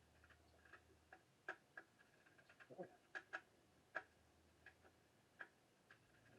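Faint, irregular small clicks and taps of hand tools working on a radio chassis as it is disassembled.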